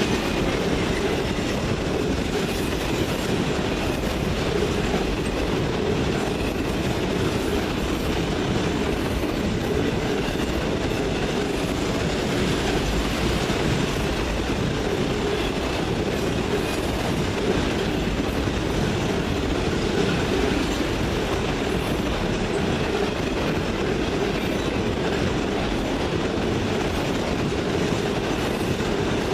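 Freight cars of a passing CN freight train rolling by at a steady speed, steel wheels running on the rails, holding an even level throughout.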